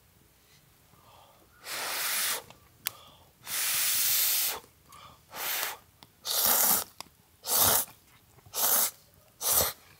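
Seven short bursts of hiss with pauses between them, the first starting a couple of seconds in; the later bursts are shorter and come more quickly.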